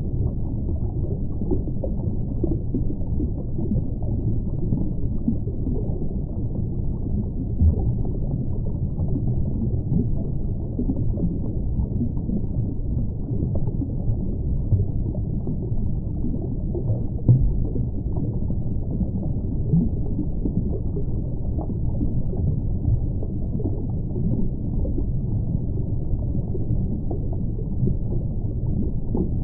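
Muffled underwater ambience: a steady low rumble with gurgling water and no high sounds. A couple of brief low thumps come about eight seconds in and again a little past the middle.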